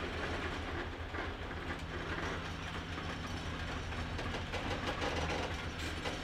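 Loaded iron ore hopper cars creeping by at a crawl on the grade, wheels and couplers giving scattered clicks and creaks, over a steady low drone of the GE C30-7 diesel locomotives working ahead. The heavy ore train is close to stalling on wet, leaf-slick rail with no sand.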